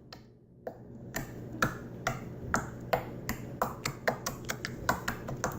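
Sparkly slime being squeezed and stretched in the hands, making a quick run of small sharp pops and clicks, about four a second, starting about a second in.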